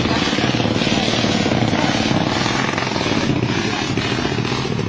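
Small motorcycle engine running steadily with a rapid low putter as the bike pushes through deep floodwater.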